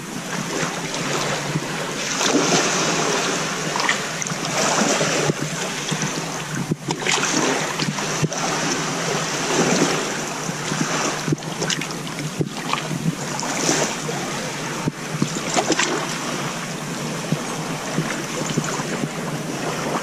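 Small waves washing over a shallow sandy shore, mixed with wind rushing on the microphone; the noise swells and eases every second or two.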